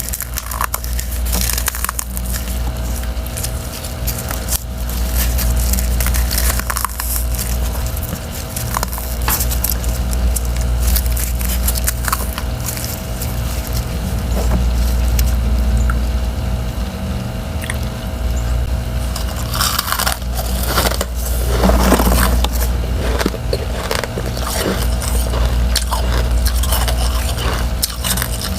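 Bites and chewing of crunchy freezer frost: refrozen ice chunks with a soft powdery frost layer, crunching in irregular crackles. A denser, louder burst of crunching comes about twenty seconds in, over a steady low hum.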